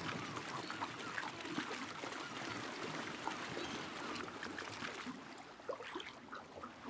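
Shallow water sloshing and splashing against a muddy bank as dolphins surge ashore to strand-feed, driving fish out of the water.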